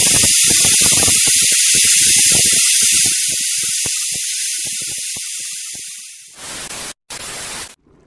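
A loud hiss with irregular crackling beneath it, fading slowly over about six seconds. Then come two short bursts of hiss, each cutting off sharply.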